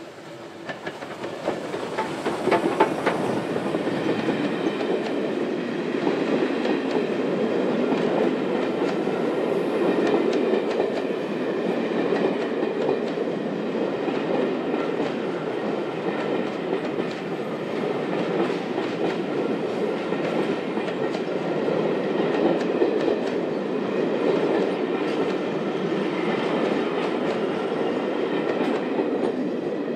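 Steam locomotive 35028 Clan Line, a Bulleid Merchant Navy class Pacific, passes close, followed by a long rake of Pullman coaches. The sound builds over the first two seconds, is loudest as the engine goes by, then holds as a steady rumble with wheel clicks over the rail joints.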